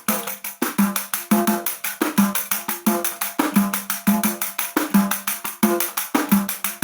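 Pandeiro played in a steady, even rhythm: a low tone from the drumhead about every two-thirds of a second, with bright jingle strokes filling in between. It is the usual way most pandeiro players play it.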